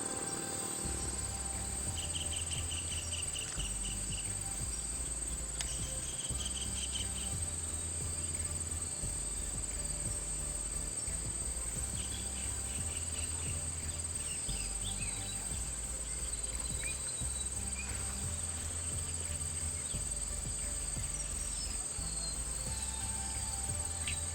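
Insects droning in one steady high-pitched note, with short chirping trills now and then, over background music with a slow-stepping bass line.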